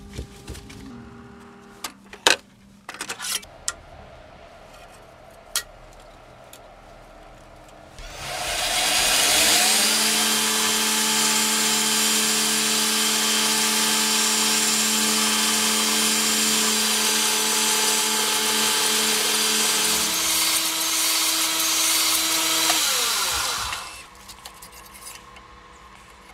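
Belt grinder grinding the bevel of a steel damascus knife blade held in an angled jig. A few sharp clicks come first; about eight seconds in the grinder spins up into a loud, steady hiss with a hum under it. It runs for about fifteen seconds, then winds down.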